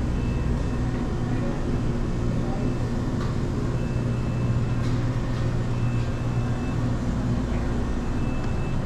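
Steady low mechanical hum of shop refrigeration and ventilation, even throughout, with faint short high beeps now and then.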